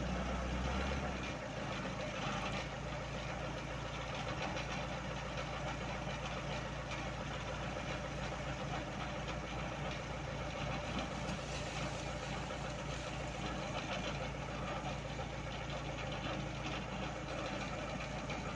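Forklift engine running steadily while the forklift works a snow bucket attachment. A strong low hum drops off about a second in, then the engine runs on evenly.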